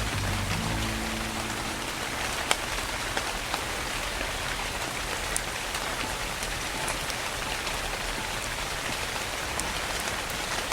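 Steady soft rain falling, an even hiss broken by scattered sharper drop ticks. A few low held music notes fade out within the first two seconds.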